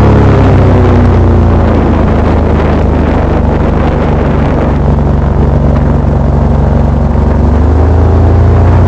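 Airboat engine and propeller running loud and steady. The engine eases off slightly in the middle and picks up again near the end.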